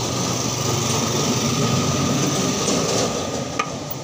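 A motor or engine running with a steady drone, easing off slightly near the end.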